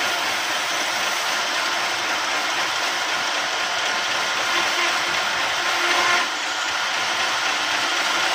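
Electric horizontal band sawmill running, its band blade cutting lengthwise through a log with a steady, hissing saw noise. It swells briefly about six seconds in, then drops back a little.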